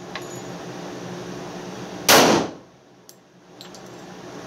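A single .45 ACP pistol shot from an ATI FXH-45 Moxie 1911-style pistol about two seconds in, with a short echo of an indoor range.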